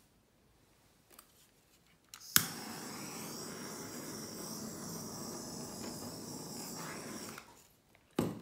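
A sharp click, then a steady rushing noise that runs for about five seconds and dies away quickly, followed by another short click near the end.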